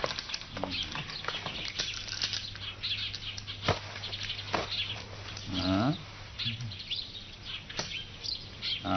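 Ambient birdsong of scattered short high chirps over a steady low hum, with one brief pitched call about halfway through.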